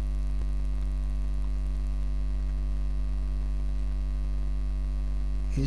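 Steady electrical mains hum in the recording: a strong low drone with a stack of fainter, higher steady tones above it and a light hiss underneath.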